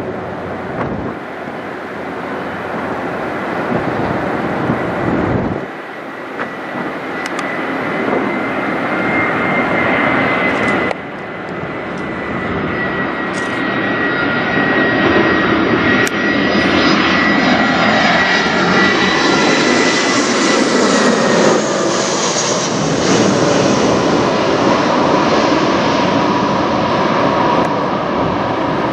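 Airbus A319 jet airliner flying low overhead on approach to land: its twin turbofan engines give a heavy rushing rumble with a steady high whine. The sound grows louder to a peak a little past the middle, then eases off slightly.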